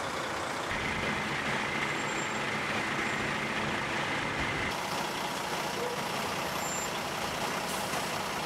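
Steady engine noise of heavy vehicles running. The background changes abruptly about a second in, around the middle, and near the end, with a faint steady whine in the first half.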